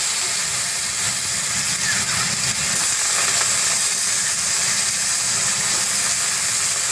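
Chopped potatoes sizzling in hot oil in a steel karai (wok), a loud, steady frying hiss.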